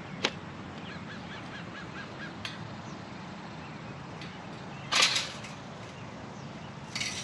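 Metal parts of a portable disc golf basket clinking and clattering as they are fitted together. The loudest is a sharp clatter about five seconds in, with a shorter, lighter jingle near the end, over a steady low outdoor background, with a faint run of high chirps about a second in.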